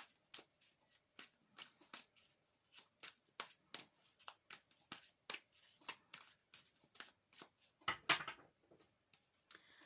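A deck of tarot cards being shuffled by hand: a run of short papery slaps, about two to three a second, with one longer swish near the end.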